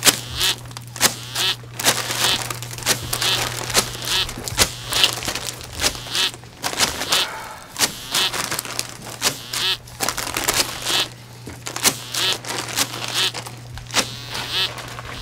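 Party blowers sounding in short irregular bursts, with many sharp clicks and clatter between them, over a low steady hum.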